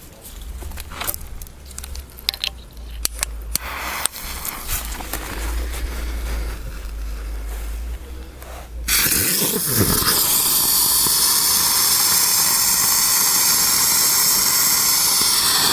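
Keller Brummkreisel ground-spinner firework (a 'humming top') ignites suddenly about nine seconds in and spins with a loud, steady buzzing hiss. Before that there is only a low rumble with scattered clicks.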